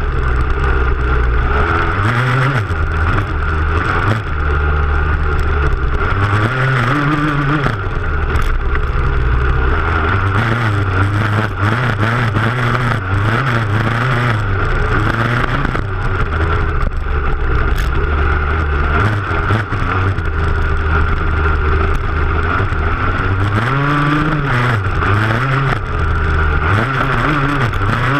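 Motocross bike engine heard up close from its rear fender, revving up and falling off again and again as the bike is ridden hard over rough ground, with a few sharp knocks from the bumpy ride.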